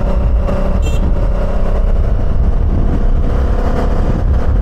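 Motorcycle engine running at a steady cruising speed, its pitch holding level, under heavy wind rumble on the helmet microphone.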